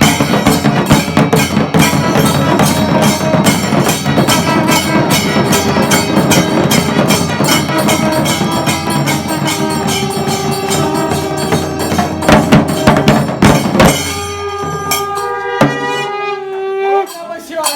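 Kailaya vathiyam ensemble of temple drums and hand cymbals playing a fast, dense rhythm with long horns. About three-quarters of the way through, the drums and cymbals stop, leaving the horns holding long notes that sag in pitch at the close.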